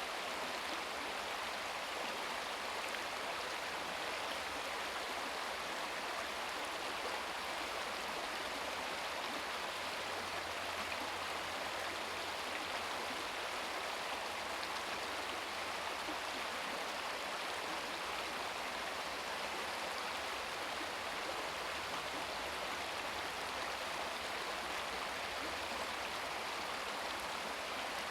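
Shallow brook babbling over stones: a steady rush of running water with no pauses or single splashes.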